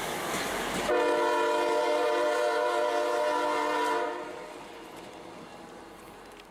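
Train wheels rolling past on the rails, then about a second in the lead SD40E locomotive's air horn sounds one long blast, a steady chord of about three seconds that stops and echoes away.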